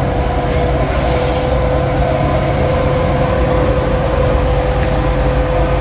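A vacuum excavator truck running continuously, with a steady whine over a low engine rumble as its suction hose works in a trench.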